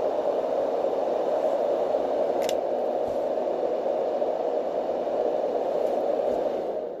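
Dohm fan-based white noise machine running on its fast speed (speed 2): a steady, wind-like rush of air from its internal fan. A faint click about two and a half seconds in.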